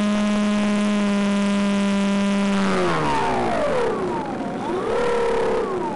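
Electric motor and propeller of a Finwing Penguin RC plane, picked up by the onboard camera microphone. It whines at a steady pitch under power, then the throttle is cut about two and a half seconds in and the whine slides down as the prop slows. It swells briefly in pitch once more near the end before falling away again.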